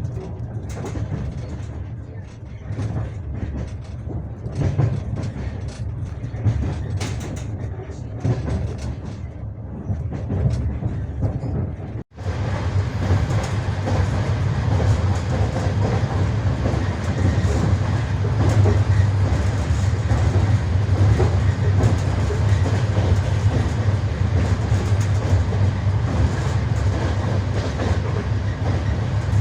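Passenger train wheels clattering over the rail joints, with a steady low rumble of the moving carriage. About twelve seconds in the sound cuts out briefly and comes back louder, with more hiss.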